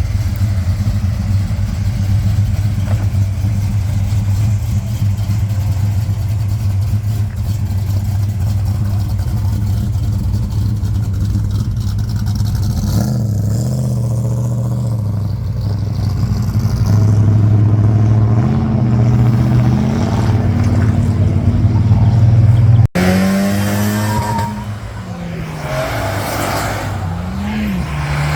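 Muscle car V8 engine idling with a steady low rumble, then blipped several times from about 13 seconds in and held at higher revs for a while. After a sudden cut near the end, another engine is revved up and down.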